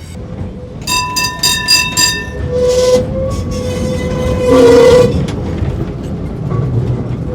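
Vintage KTM-1 tram with its KTP-1 trailer running past, over a steady hum. About a second in, its bell rings in a quick run of about five strikes. A louder burst comes near the middle.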